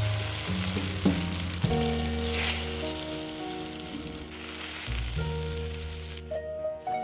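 Food sizzling as it fries in a pan, a dense hiss that thins out and stops about six seconds in, over background music with held low notes.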